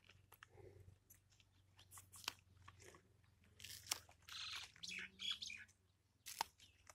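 Faint crisp snaps and rustling of green onion leaves being broken off the plant by hand, with a few sharp clicks scattered through.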